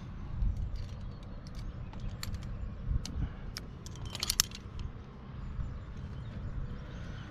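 Metal climbing hardware, carabiners and quickdraws on a harness, clinking in scattered light clicks, with a quick cluster of clinks about four seconds in, over a low steady rumble.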